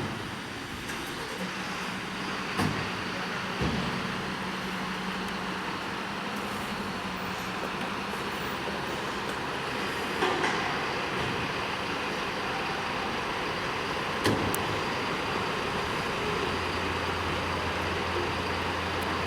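Engines of a fire engine and an ambulance running amid steady street noise, with a few sharp knocks; a deeper engine hum sets in near the end.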